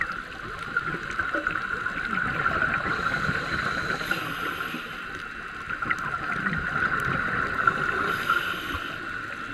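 Scuba diver breathing through a regulator, heard underwater: two inhalation hisses about four seconds apart, with crackling exhaust bubbles between them, over a steady high hum.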